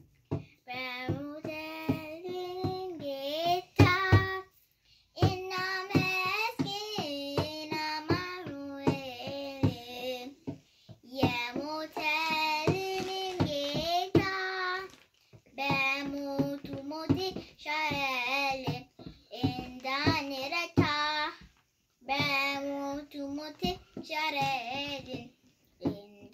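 A young girl singing an Amharic Ethiopian Orthodox hymn in phrases of a few seconds with short breaks between them. She keeps a steady beat with her hand on a kebero drum.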